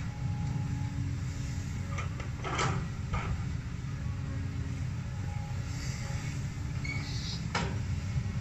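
Diesel engine of a Cat 320D hydraulic excavator running steadily under load, with a few sharp clunks about two to three seconds in as its bucket dumps soil into a six-wheel dump truck's bed, and another clunk near the end as the bucket bites into the ground.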